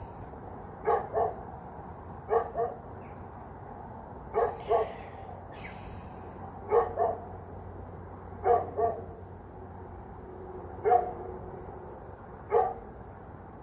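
A dog barking repeatedly, mostly two barks at a time, every couple of seconds.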